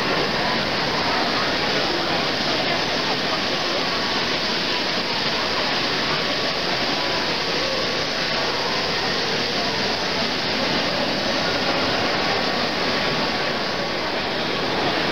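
Steady background din of a crowded exhibition hall, with indistinct voices mixed into an even wash of noise.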